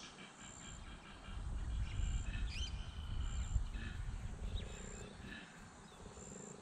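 Bush ambience at dusk: birds chirping and trilling, and a short high note repeating about every second and a half. A low rumble from about one to four seconds in is the loudest part, and a low pulsing animal call starts about four and a half seconds in.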